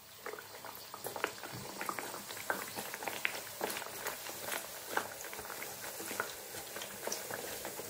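Hot oil sizzling and crackling around a bhatura deep-frying in a steel pan, with many small pops scattered through.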